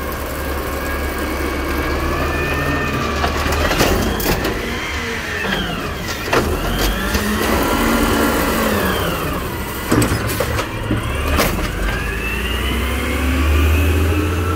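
Automated side-loader garbage truck's compressed-natural-gas engine revving up and down to drive the hydraulic lift arm as it raises a trash cart, dumps it and lowers it, giving rising and falling whines over the engine drone. Several sharp knocks and bangs come from the cart and arm during the dump.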